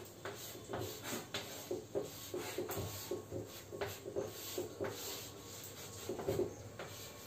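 Chalk drawing on a blackboard: quick, irregular scraping and tapping strokes as lines are sketched.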